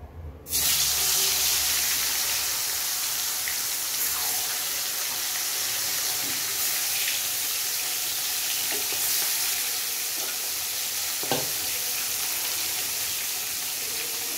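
Pieces of small katla fish dropped into hot mustard oil in a kadai: a loud sizzle starts suddenly about half a second in and carries on steadily as the fish fry, with one light knock a little past eleven seconds.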